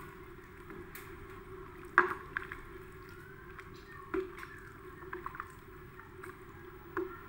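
A ladle stirring vegetable soup in a metal pot, the broth sloshing, with a few sharp knocks of the ladle against the pot at about one, two, four and seven seconds in, the one about two seconds in the loudest.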